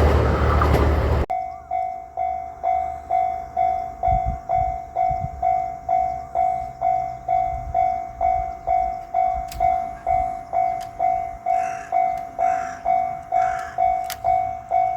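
A 2700 series diesel limited express passes a Japanese level crossing, its loud passing noise cutting off abruptly about a second in. The crossing's warning bell keeps ringing its single 'kan-kan' tone at about two strikes a second.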